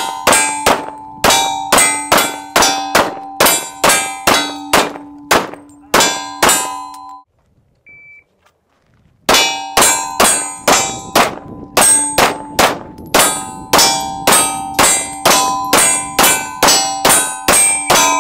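Two strings of rapid pistol fire at steel plate targets, about three shots a second, with the struck steel ringing between shots. In the pause between the strings, about eight seconds in, a shot timer gives a short high beep to start the second string.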